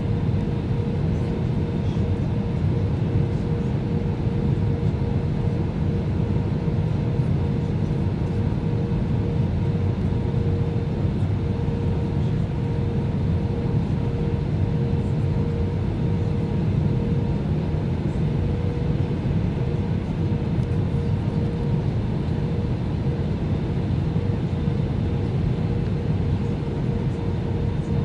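Steady in-cabin drone of an Airbus A320 airliner descending on approach: a constant low rumble of engines and airflow with a thin steady hum above it.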